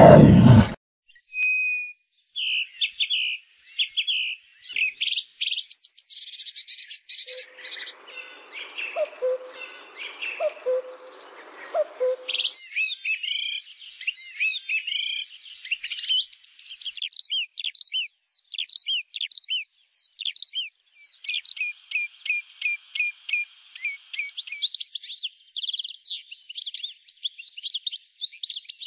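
Birdsong: several birds chirping, whistling and trilling in quick repeated phrases, with a lower series of short notes joining for a few seconds near the middle. A loud groaning voice cuts off abruptly within the first second.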